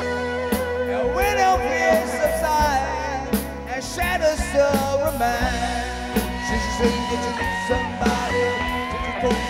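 Live rock band playing, a male singer's voice over electric guitars, bass, drum kit and keyboard.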